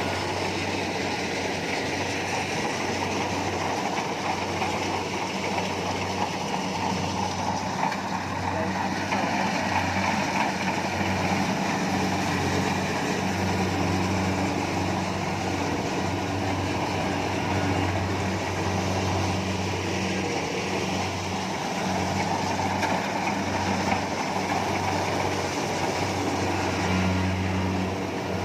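Kubota rice combine harvester running steadily while harvesting, its engine hum under a continuous clatter and rush of the cutting and threshing machinery.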